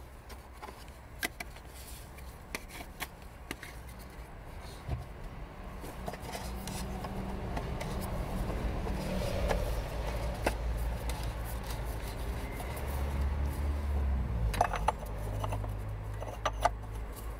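Plastic oil filter housing cap being screwed back onto the housing by hand, with scattered small clicks and clinks of plastic and tools and a few sharper clicks near the end, over a low rumble that grows from about six seconds in.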